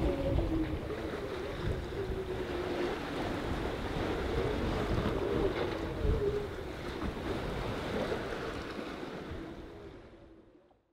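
Wind buffeting the microphone and sea washing around a sailing yacht under sail with its engine off, with a wavering hum underneath. The sound fades away near the end.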